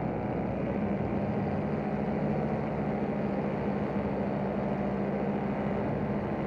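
Paramotor engine on a powered paraglider running steadily, a constant low hum with no change in speed.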